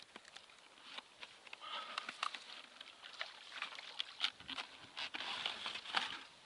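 Live roach flapping and splashing as they are shaken out of a mesh keepnet into a plastic bucket of water: irregular slaps, rustles and splashes, busiest in the second half.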